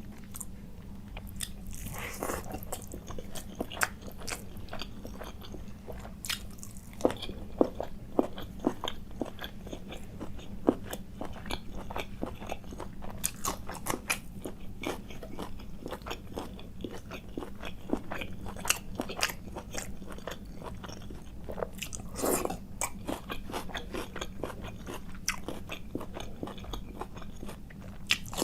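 A person chewing food close to the microphone: irregular wet mouth clicks and crunching bites, over a steady low hum.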